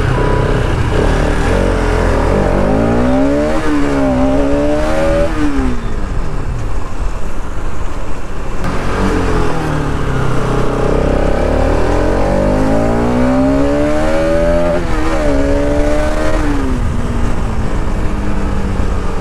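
Bajaj Pulsar RS 200's single-cylinder engine under way, its note climbing and dropping several times as the bike accelerates through the gears. Wind rumble on the microphone underneath.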